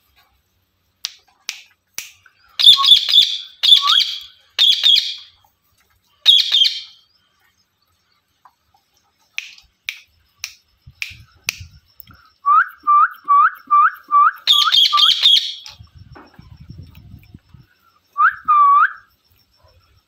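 Indian ringneck parakeets calling: sharp clustered screeches, and in the second half a quick run of about seven short rising chirps, with two more near the end.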